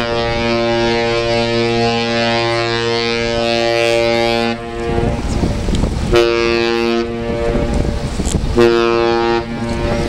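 Ship's horn on the 1,000-foot Great Lakes freighter Mesabi Miner, loud, sounding one long blast of about four and a half seconds followed by two short blasts.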